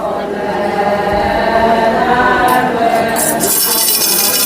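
A group of voices chanting together the chorus response of a traditional Adi Solung call-and-response song, many voices overlapping. Past the middle, a rattling, jingling sound joins in.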